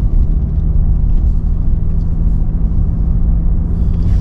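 Cabin noise of a 2023 Nissan Frontier PRO-4X pickup driving while towing a trailer: a steady low rumble of road and engine with a constant hum.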